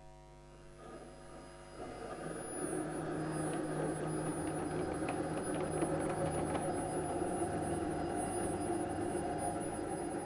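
Steady mechanical hum and whir of the superconducting maglev lift rig running along its magnet rail, fading in over the first two seconds, with a few faint ticks.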